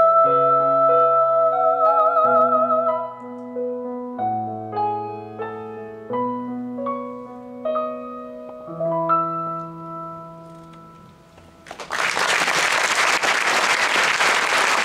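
A woman's voice holds the final sung note over piano, wavering with vibrato, and stops about three seconds in. The piano plays a few closing chords that die away, and then audience applause breaks out near the end.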